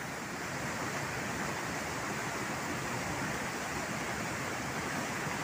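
Rushing water of a river waterfall, a steady even rush.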